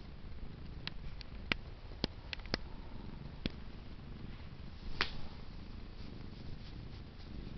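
Domestic cat purring in a steady low rumble while being petted. Several sharp clicks break in between about one and three and a half seconds, and a louder click comes about five seconds in.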